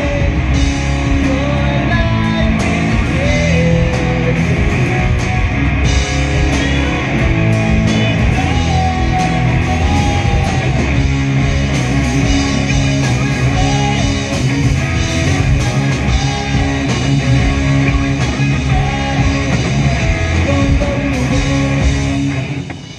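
Live rock band playing with electric guitar, drums and a lead singer, loud and full throughout. The music drops away just before the end.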